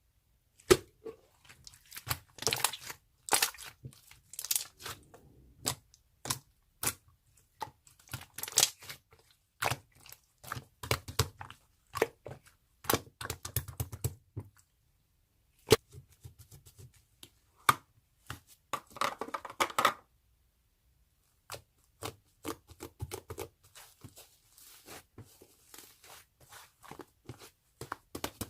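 Close handling noises: crinkling and tearing of a thin material, with many scattered taps and clicks and short pauses between them.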